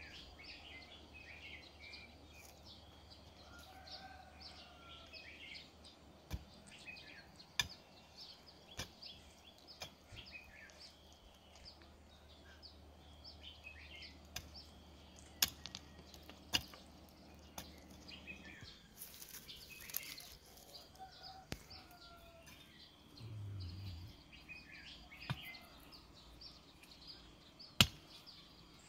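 A hand hoe striking dry, stony soil in sharp, irregular strikes, the loudest near the end. Small birds chirp faintly throughout.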